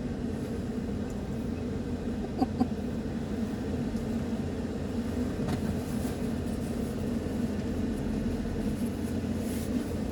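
Steady low background rumble with no speech. Two short clicks come about two and a half seconds in.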